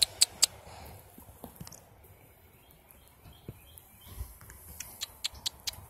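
Sharp mouth clicks made to call a squirrel in for food: three near the start and a quick run of about eight near the end. Faint bird chirps sound in the quiet stretch between.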